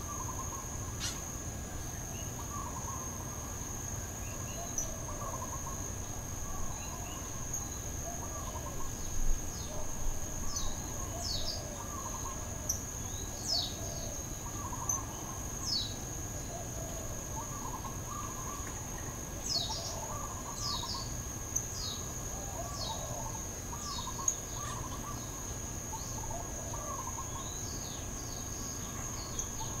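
Outdoor night-time-style ambience: a steady high-pitched insect trill, with scattered short falling chirps and faint, irregular lower calls over it.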